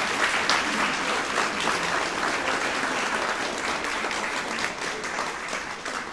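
Audience applauding, a dense patter of many hands clapping that thins slightly near the end.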